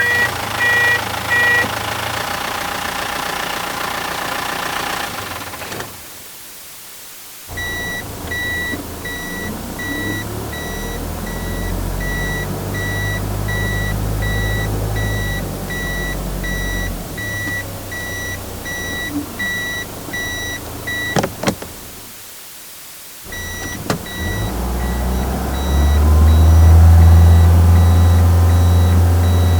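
Truck engines running at low speed in three short recordings, separated by brief silences, with a high electronic warning beeper pulsing steadily through the later two. The engine revs up near the end.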